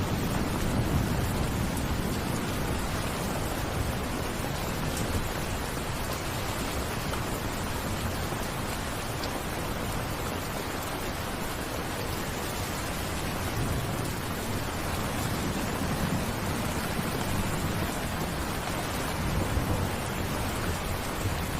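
Steady rain falling, with low rumbles of distant thunder swelling near the start and again in the second half.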